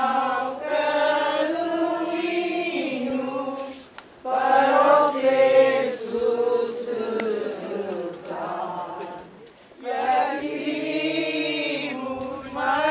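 A crowd of voices singing a slow hymn together, in long held phrases with brief pauses between them.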